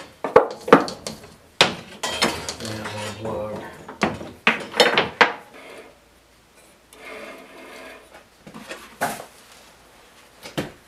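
Clattering metallic clicks and knocks from a small 9-inch Task Force bandsaw being handled, its upper wheel turned by hand to check the blade's tracking on new tires. The knocks come thick for the first five seconds or so, then thin out to a few near the end.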